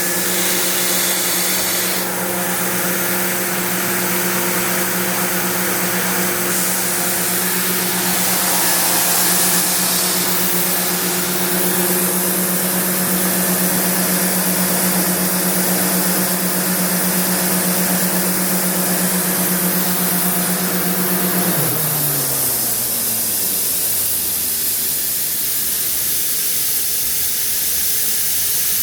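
Sullair 20-125L 125 HP rotary screw air compressor running with a steady hum under a loud hiss of compressed air escaping. About three-quarters of the way through, the motor stops and its hum drops in pitch as it spins down, while the air keeps hissing.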